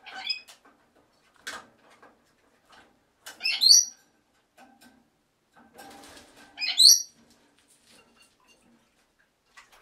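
Pet lorikeet giving three loud, shrill screeches about three seconds apart while bathing, with wing-flapping and splashing between the calls.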